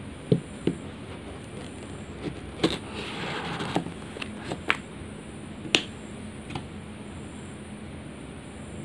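A knife blade scraping and slicing through the seal stickers on a cardboard phone box, with a short scratchy cut about three seconds in. Sharp clicks and taps from the blade and the box are scattered through it.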